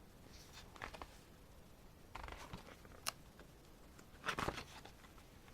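Pages of an album photo book being turned and handled: a few short paper rustles and a sharp click, the loudest rustle about four seconds in.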